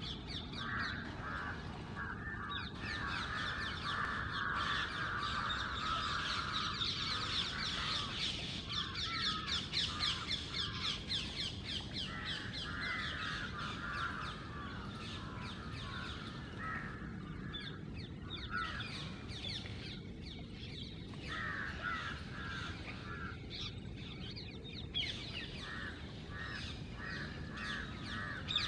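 A flock of crows cawing and rose-ringed parakeets shrieking together, many birds calling over one another almost without pause.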